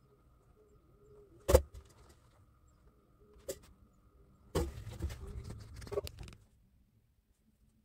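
Metal knocks and clatter from a small geared electric motor being handled on a wooden workbench: one sharp knock about one and a half seconds in, a lighter one a couple of seconds later, then a run of knocks and rattling for about two seconds before it goes quiet.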